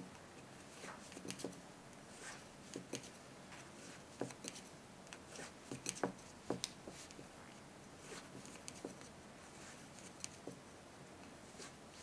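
Wooden knitting needles clicking and tapping softly and irregularly against each other, with yarn rubbing, as stitches are knit along a row.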